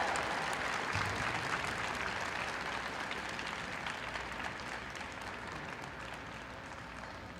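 Applause from a small audience in the stands, a haze of many hand claps that slowly dies away.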